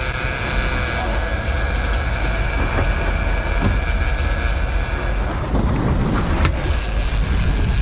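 Big-game trolling reel's drag whining as a hooked marlin pulls line off: a steady high-pitched whine that falters about five seconds in and then picks up again. Underneath is the low rumble of the boat's engines and wind.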